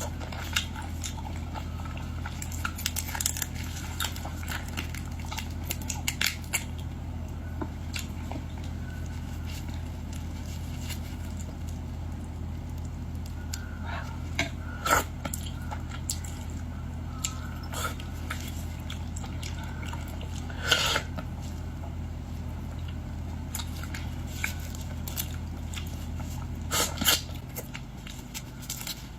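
A person eating boiled shrimp and lobster: chewing and biting with scattered short clicks and cracks. A steady low hum runs underneath and cuts out near the end.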